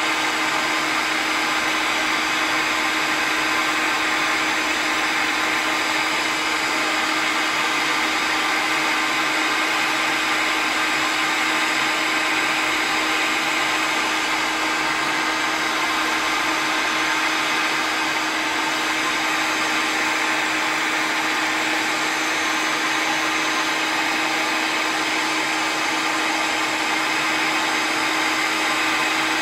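Electric heat gun running steadily, its fan blowing hot air onto a lead jig head to heat it for powder coating: an even rushing hiss with a steady hum underneath.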